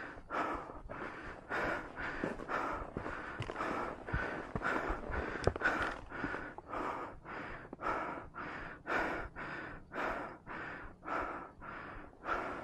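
A person breathing hard and fast, about two breaths a second, panting for air: a hiker out of breath from a steep uphill climb.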